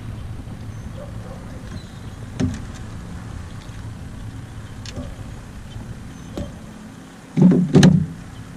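Steady low hum of a small boat's electric trolling motor, with a few light knocks against the boat. Two loud low sounds come shortly before the end.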